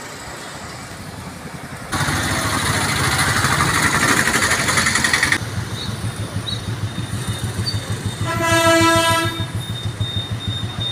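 A heavy vehicle's horn blares once for about a second, over a low rumbling engine. Before it, a loud hiss starts and stops abruptly and lasts about three seconds.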